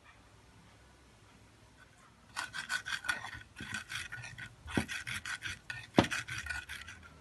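Pestle grinding spice paste in a cobek mortar: after about two seconds of quiet, a fast run of gritty scraping strokes, several a second, with two sharper knocks of the pestle against the mortar about five and six seconds in.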